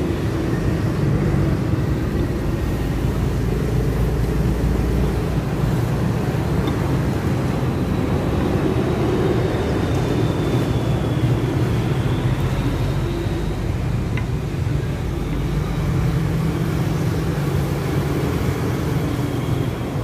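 Steady low rumble of road traffic, a continuous background din with no distinct events.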